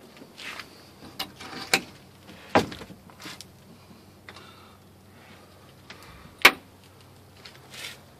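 Sharp knocks and clunks of a fiberglass deck storage hatch lid being lifted open, with rustling handling noise between them. The loudest knock comes about six and a half seconds in.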